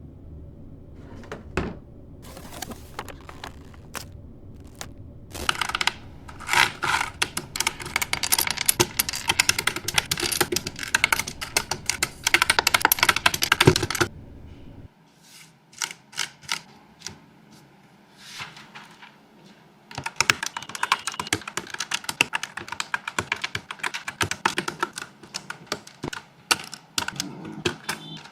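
Typing on a NuPhy Air75 low-profile mechanical keyboard: a few scattered key clicks, then long runs of fast clacking, with a lull of sparser clicks about halfway through before fast typing resumes.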